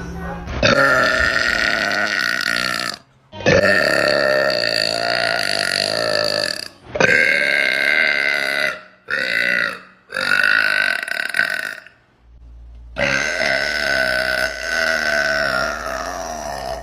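A woman burping: a series of about six long, drawn-out burps, most lasting two to three seconds, with short breaks between them.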